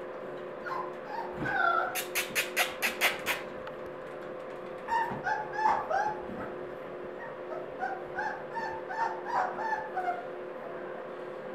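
Boxer puppies whimpering and yipping in many short, high-pitched cries, with a quick run of about seven sharp, loud sounds about two seconds in. A faint steady hum runs underneath.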